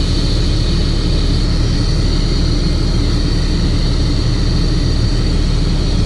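Diesel motorhome engine running at idle, with a steady air hiss and a high whine from the air-pressure-driven venturi vacuum generator, which is making vacuum.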